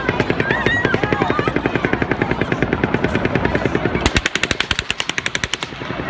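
Rapid automatic gunfire, a continuous train of shots. About four seconds in, a sharper, louder run of faster shots comes in for nearly two seconds, which the narrator takes for a second, closer gun firing at a faster rate rather than an echo.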